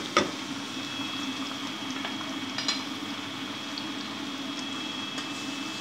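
Chopped onions sizzling steadily in hot oil in a pot, with a spatula knocking against the pot just after the start and once more lightly about two and a half seconds in.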